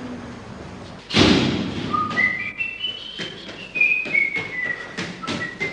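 A man whistling a cheerful tune in short notes that step up and down, with regular footsteps on tiled stairs. A loud thud about a second in.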